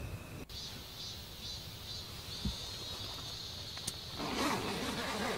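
A steady high-pitched chirring of insects, joined about four seconds in by the louder rustle of tent fabric being handled.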